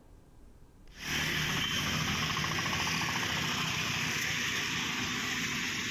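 Steady street noise of traffic in heavy rain: vehicle engines running under an even hiss. It starts suddenly about a second in, after a brief near-silence.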